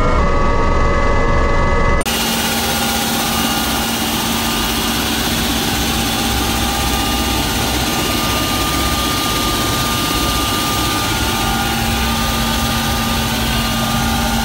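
Helicopter turbine engines and rotor running, heard from inside the cabin: a loud steady noise with several steady whining tones. The sound changes abruptly about two seconds in, then holds steady.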